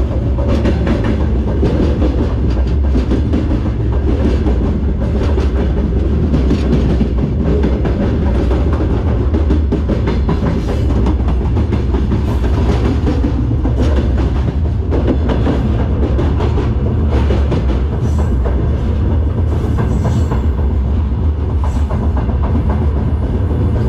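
Freight train rolling along, heard from the open end platform of a covered hopper car: a loud, steady rumble of steel wheels on rail, with continual sharp clatter and rattling from the car's running gear and couplings.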